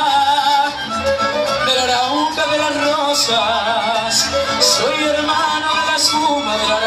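Mariachi band playing live: violins carrying the melody with vibrato over strummed guitars and vihuela.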